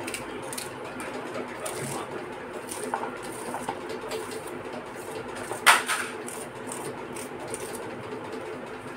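Knife cutting an onion on a plastic plate: light, scattered taps and scrapes over a steady low hum, with one sharper knock a little past halfway.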